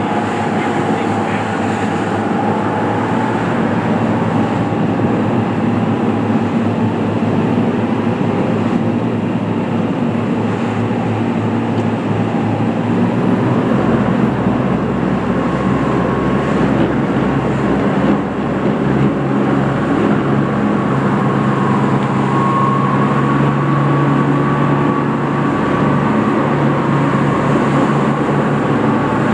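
Powerboat engines running hard together with a steady, heavy rush of engine and water noise, as a fleet of sport-fishing boats races out at once at a tournament's shotgun start.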